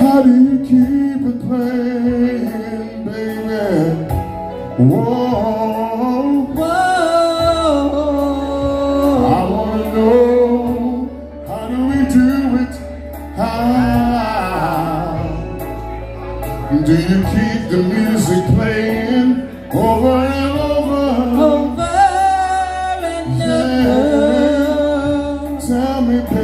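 A woman and a man singing a duet into microphones, amplified through a PA, over backing music; a low bass line comes in about seven seconds in.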